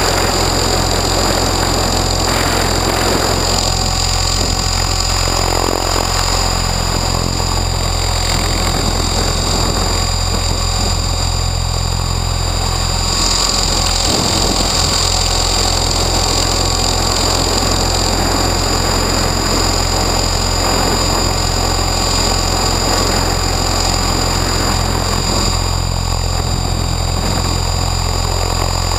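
Align T-Rex 600 electric RC helicopter in flight, heard close up from its own canopy: a steady hum from the rotor and drivetrain with a high, even electric-motor whine over it, running on a 6S battery.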